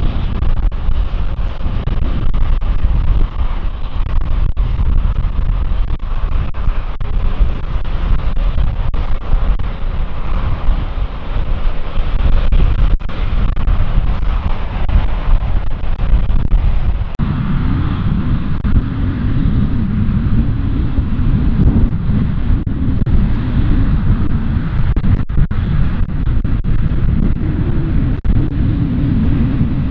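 Airliner engines running steadily, with wind rumbling on the microphone. A little over halfway through, the low engine sound grows stronger and stays.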